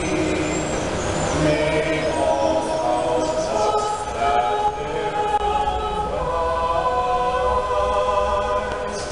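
A small mixed choir singing, several voices holding long notes together.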